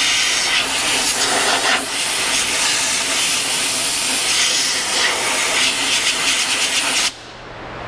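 Compressed air hissing steadily from a handheld air blow gun aimed at a brake line fitting; it cuts off suddenly near the end.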